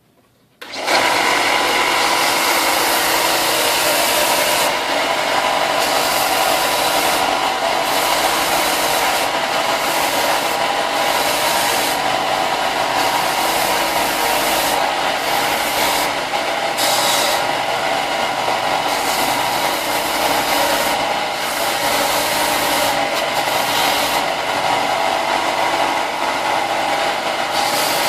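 Power sander running steadily against the freshly cut edges of plastic armor pieces, sanding them straight. It starts about a second in, with a continuous motor hum under the grinding hiss.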